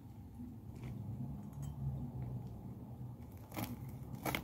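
Faint low hum, then near the end a few short scrapes and taps as a large kitchen knife cuts down through a soft-bread sandwich.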